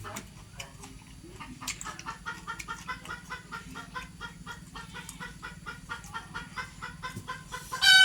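Chickens clucking in a fast run of short calls, about five a second, with one loud squawk right at the end.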